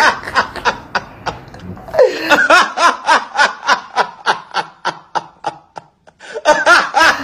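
A man laughing hard in a long run of rapid ha-ha bursts, with a short break near the end before the laughing starts again.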